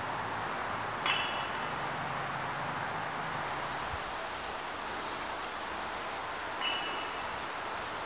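Steady outdoor background hiss, with two brief high chirps, one about a second in and one near the end.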